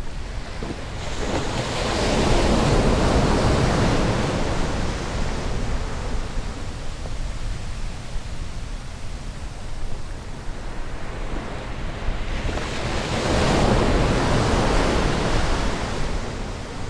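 Sea surf breaking and washing up a sand beach, swelling loud twice about ten seconds apart. A steady low wind rumble on the microphone runs underneath.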